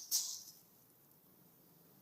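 Crinkling plastic rustling sharply as a kitten plays with it, stopping about half a second in.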